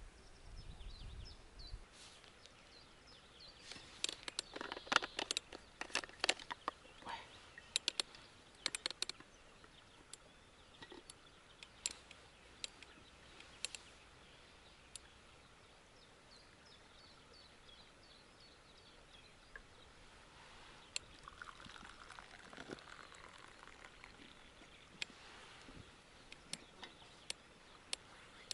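Quiet riverbank ambience with faint birdsong. A cluster of crackling clicks and rustles from handling comes about four to nine seconds in, and tea is poured from a thermos into its cup later on.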